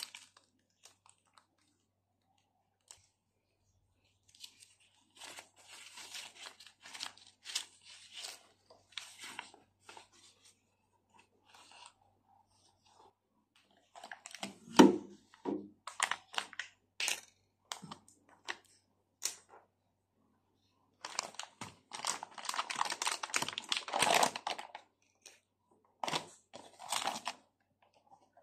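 Plastic and foil packaging rustling and crinkling in several bursts as a bag of ground coffee is pulled from a plastic container and opened, with clicks and one hard knock about halfway through.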